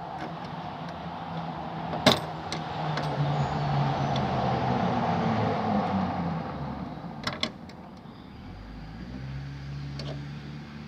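Sharp metallic clicks of small lock parts being handled and fitted: a loud one about two seconds in, a quick pair later, and a faint one near the end. Under them runs a low engine-like hum that swells and then fades.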